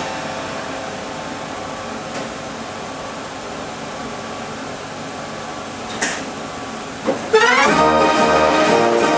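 66-key Gavioli-system street organ silent between tunes, leaving a steady hiss with a faint click about two seconds in and a sharp click about six seconds in. About seven seconds in the organ starts its next tune with a quick rising run, then loud brassy pipes over a steady bass.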